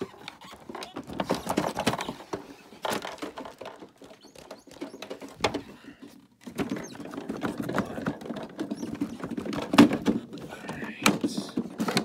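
Plastic clicks, knocks and scraping as the hose and attachments are worked loose and pulled off a Hoover upright vacuum cleaner, with a sharper knock near the end. The vacuum's motor is not running.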